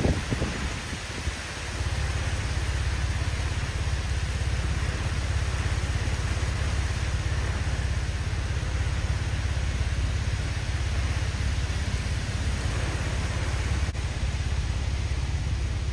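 Hurricane wind and heavy rain: a steady low rumble of wind buffeting the microphone over the even hiss of driving rain.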